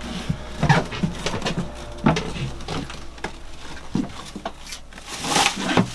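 Light knocks and rustling as packs of rags and absorbent pads are handled and stowed in a storage cabinet, with a louder rustle near the end, over a low steady hum.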